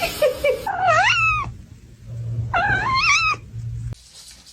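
A domestic cat meowing twice, each meow drawn out and rising then falling in pitch, over a steady low hum that cuts off near the end.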